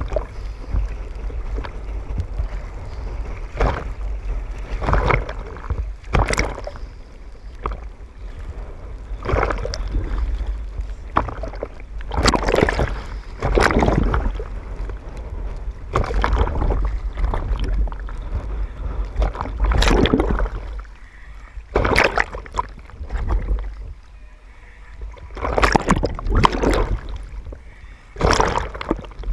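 Choppy sea waves slapping and splashing over a camera held at the water surface, in irregular surges a second or two apart, over a steady low rumble.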